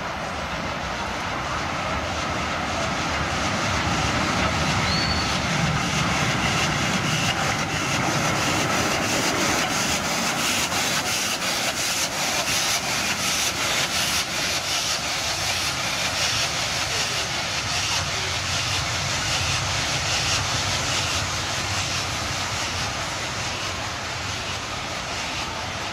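FS Class 740 steam locomotive running light at low speed, hissing steam with a fast, even chuff. It grows louder as it draws past, about a few seconds in, then eases off.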